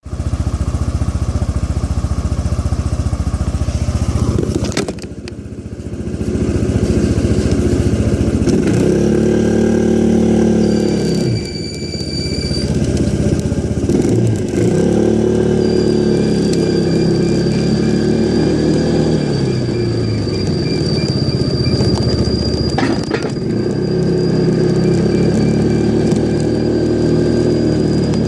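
Yamaha SMAX scooter's single-cylinder 155 cc engine running, first steady, then rising and falling in pitch again and again as the scooter pulls away and changes speed, with a thin steady high whine in the second half. This is the abnormal noise that shows up on the first ride in cold weather.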